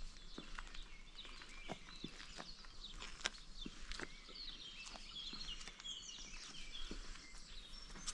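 Footsteps at walking pace, with small birds chirping in a run of quick chirps around the middle.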